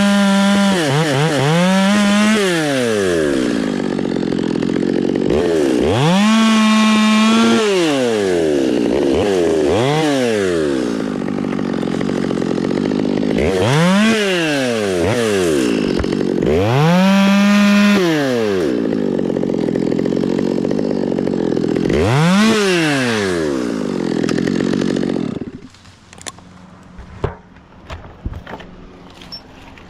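Two-stroke chainsaw revving up and down over and over, held briefly at full speed several times, then shut off about 25 seconds in; faint scattered knocks follow.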